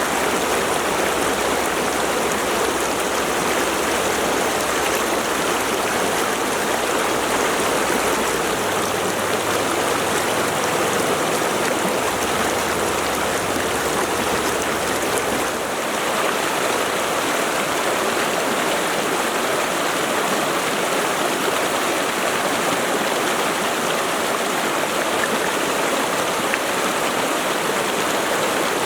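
Mountain river flowing steadily, an even rush of water, with a slight dip and change in its low end about halfway through.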